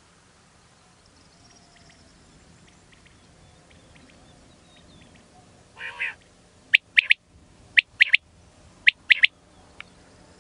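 Male common quail singing its "wet-my-lips" advertising song: a soft two-part note, then three quick phrases of three sharp notes each, about a second apart, with one faint extra note after them.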